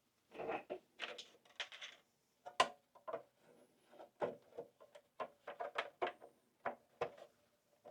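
Hands handling PlayStation 5 parts during reassembly: a run of irregular knocks, clatters and scrapes, with one sharp click about two and a half seconds in.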